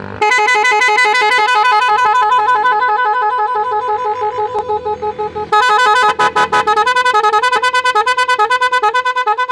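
Telolet horn, an aftermarket multi-tone electric bus horn, playing a wavering, pulsing melody. About five and a half seconds in, it switches to a different tune of quickly alternating notes.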